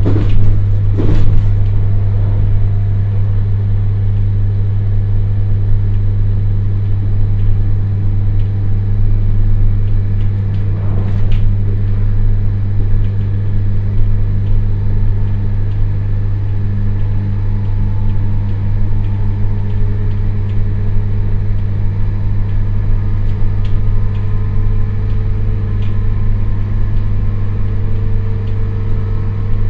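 JR Hokkaido 721 series EMU motor car (MoHa 721) under power, heard from inside the passenger cabin. A loud, steady low hum dominates: the 50 Hz AC booming typical of this thyristor phase-controlled train, which the uploader suspects is transformer hum. It sits over running rumble, with a fainter whine rising slowly in pitch in the second half.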